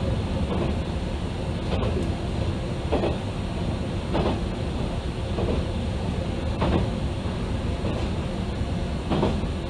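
Ibara Railway diesel railcar running along the line, heard from inside the car: a steady rumble of engine and wheels, with a sharp knock about once a second as the wheels cross rail joints.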